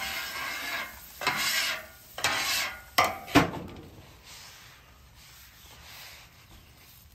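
Water sizzling and steaming on a hot steel griddle top as a scrubbing pad is worked over it to lift burnt sugary residue, in several short hissing strokes with a sharp knock about three and a half seconds in. After that it drops to a faint rubbing as the surface is wiped with a paper towel.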